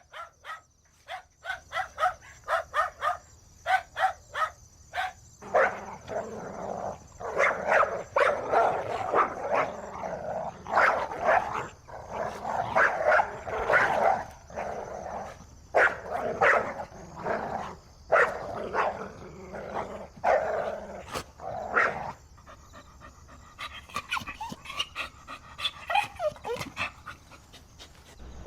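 A dog barking: a run of quick, sharp, separate barks, then a longer stretch of louder, denser barking. Near the end come a few fainter, whining calls that slide up and down in pitch.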